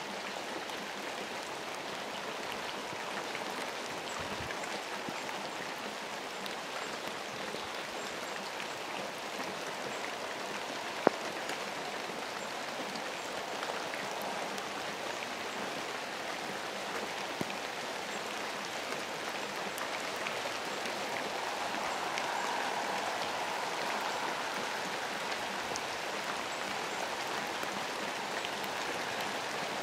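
Steady rain falling, a fine patter of raindrops, with one sharp click about a third of the way through.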